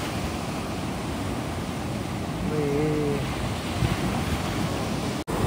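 Sea surf breaking and washing over the shallows, with wind buffeting the microphone. A short wavering call rises over it about halfway through, and the sound cuts out for an instant near the end.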